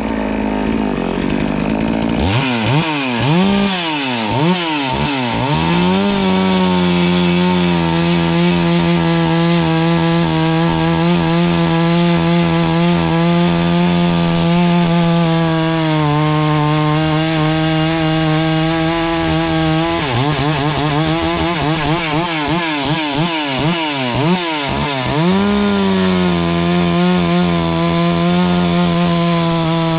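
72cc FarmMac F380W two-stroke chainsaw idling, then blipped up and down from about two seconds in before being held at a steady full-throttle note while the chain cuts through a log. Around two thirds through it is blipped again, then settles into a second steady cut near the end.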